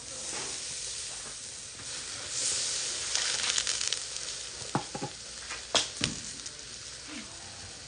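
Chicken wings sizzling over charcoal in a shichirin grill as tare sauce is brushed on and drips onto the hot coals; the hiss swells for a second or two about two and a half seconds in. A few sharp clicks follow around five to six seconds in.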